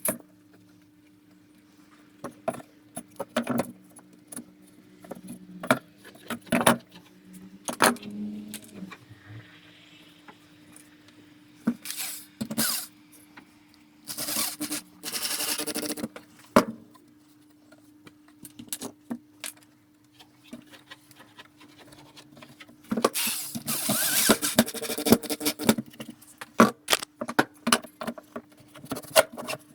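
Workshop handling noise: irregular knocks and clatter of tools and wooden parts, with a few rasping or scraping stretches of a second or two, over a steady low hum.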